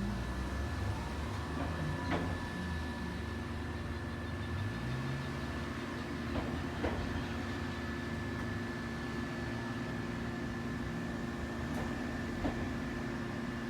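Steady hum from a drink vending machine's cooling unit, with several constant tones. A shifting low rumble runs under it for the first few seconds, and a few light clicks sound at about two, six to seven and twelve seconds in.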